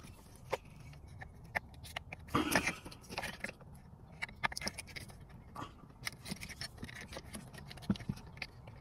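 Wiring harness cables and plastic connectors rustling, clicking and scraping against the dash trim as they are handled and plugged into a car radio. Scattered small clicks throughout, with a brief louder scrape about two and a half seconds in.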